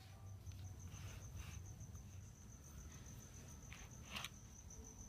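Slime being squeezed and stretched by hand, giving a few faint soft clicks, the clearest about one and a half and four seconds in. Under it run a steady high pulsing trill like a cricket's and a low rumble.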